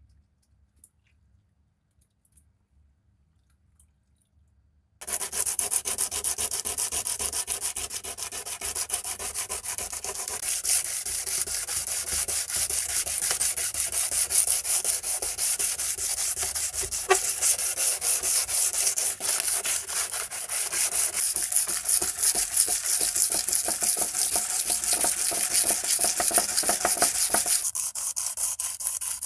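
After about five seconds of near silence with a few faint clicks, hand sanding of the dispenser's metal parts starts abruptly: a rapid, steady, hissing scratch of abrasive rubbed back and forth over the painted surface.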